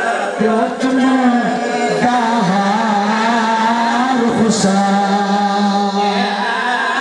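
A man's voice singing a drawn-out, wordless lament in long held notes that waver and glide in pitch, the sung recitation style of a zakir at a Muharram majlis.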